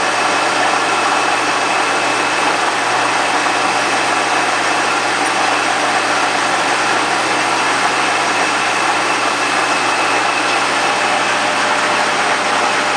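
A machine running steadily: a constant loud whirring noise with a faint steady high whine, unchanging throughout.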